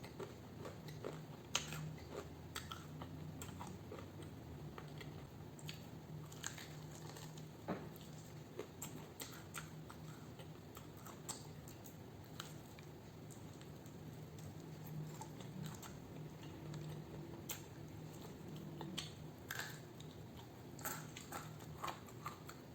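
Quiet close-up chewing and biting of fried chicken, with scattered small crunches and mouth clicks.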